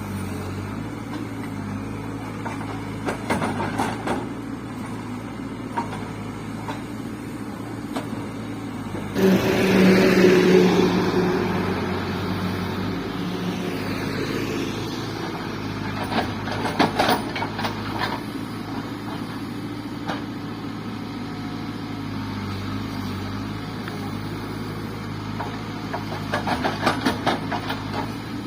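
Cat 424B2 backhoe loader's diesel engine running steadily, revving up suddenly and loudly about a third of the way through and easing back over a few seconds. Rattling knocks come three times, a few seconds apart.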